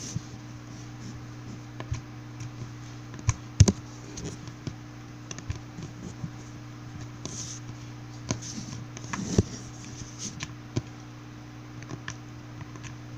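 Sticky green slime being poked with fingers, giving irregular small clicks and pops, the loudest about three and a half seconds in and again near nine and a half seconds.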